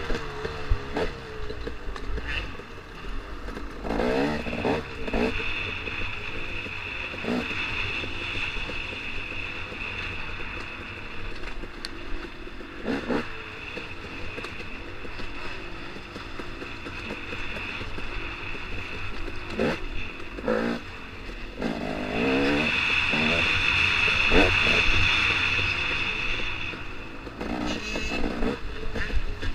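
KTM 250 XC-W single-cylinder two-stroke dirt bike engine heard close up from on board, revving hard and backing off repeatedly as the rider works the throttle and gears around the race course. The revs climb in quick sweeps several times.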